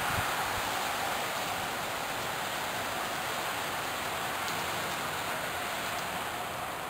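Steady hiss of splashing, falling water, easing off slightly toward the end.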